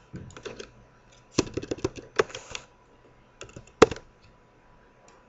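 Computer keyboard typing in short bursts of keystrokes, with the loudest single click a little before four seconds in.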